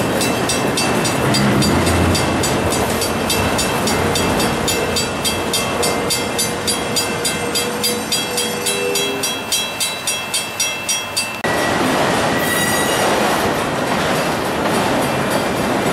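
A railroad crossing signal bell rings in rapid, even strikes over the rumble and clatter of autorack freight cars rolling through the crossing. About two-thirds of the way in the bell drops out, leaving the steady rolling noise of the cars with a brief high wheel squeal.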